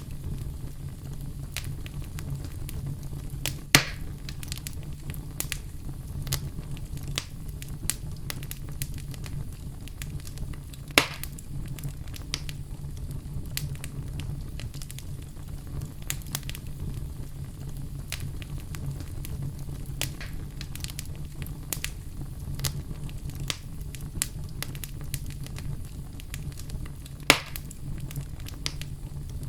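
Wood fire in a fireplace crackling, with a steady low rumble of burning under frequent small snaps and three loud pops spread through.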